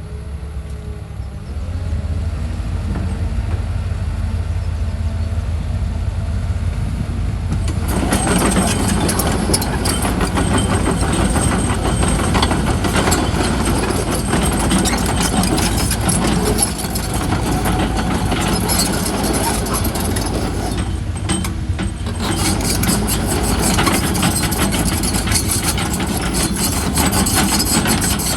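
A CAT 313FL hydraulic excavator's diesel engine running. It turns much louder and fuller about eight seconds in, eases off briefly a little past twenty seconds, then picks up again.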